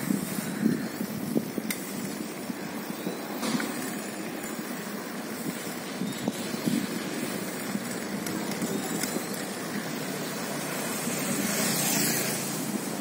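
Outdoor ambience of a quiet city street: a steady hum of distant traffic with a few light knocks, swelling briefly near the end.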